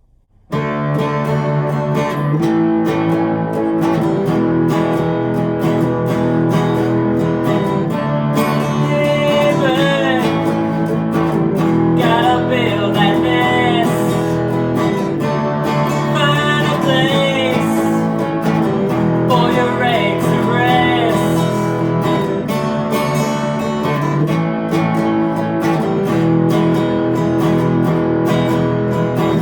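A rock song with strummed acoustic guitar starts about half a second in and plays steadily, with a wavering melody line over it from about nine seconds on.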